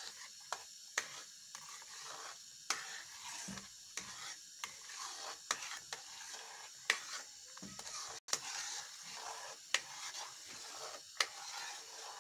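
A spatula stirring semolina halwa in a pan, knocking and scraping against the pan in irregular clicks, over a faint sizzle as the syrup-soaked mixture cooks down and thickens.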